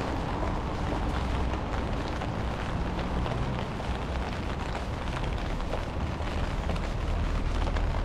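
Steady rain falling, with many small sharp drop ticks over a constant low rumble.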